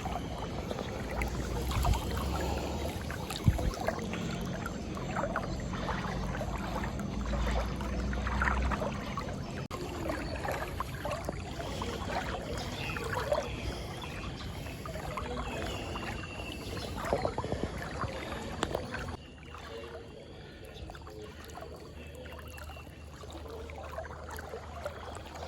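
Floodwater sloshing and splashing around a person's legs as they wade slowly through it; it gets quieter about three quarters of the way through.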